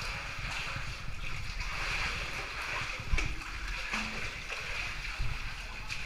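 Cave stream water running steadily with some splashing, and a couple of dull knocks as the caver scrambles through the wet passage.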